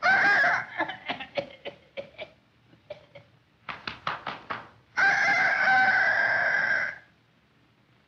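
Hen-like clucking and cackling: a loud squawk at the start, then a quick run of short clucks, then a long, loud call from about five seconds in lasting about two seconds. It is the cackle a hen gives after laying an egg.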